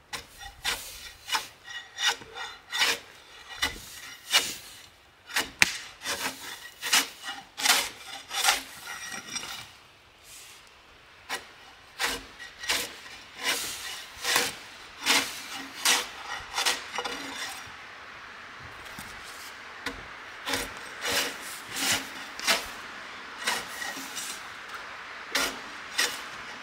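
Bark being scraped and peeled off a log with a long-handled flat-bladed tool, in repeated rasping strokes about one to two a second. Partway through the strokes thin out and a steady hiss comes up beneath them.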